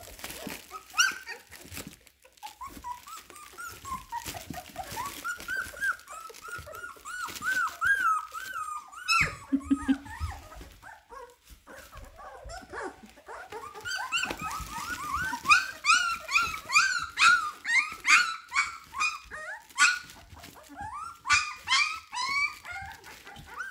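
A litter of young puppies whining and squealing in a string of short, high, wavering cries. The cries are sparse at first and grow busier and louder in the second half, as the pups try to get to their mother.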